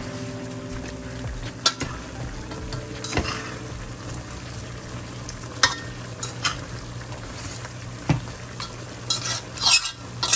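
Turkey neck sizzling in oil in a pot while a spoon stirs it, with sharp scrapes and clinks of the utensil against the pot every few seconds and a cluster of them near the end.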